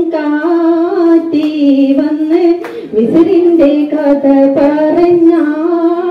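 A woman singing solo into a microphone, one voice holding long, smoothly gliding notes, with a brief pause for breath about three seconds in.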